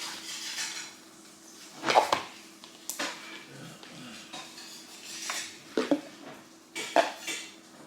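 Slime being handled: a scattered handful of short squelches and clicks, with a faint steady hum underneath.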